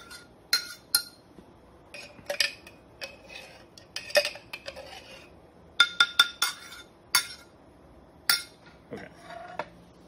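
Kitchen knife clinking and scraping against a glass jar and bowl while scooping out a thick spread, in irregular clusters of sharp, briefly ringing taps.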